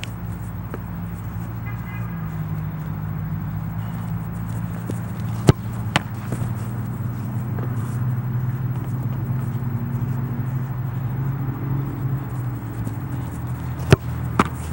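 Steady low hum with sharp ball smacks of goalkeeping practice cutting across it: two about five and a half seconds in, and two more near the end as the keeper dives to make a save.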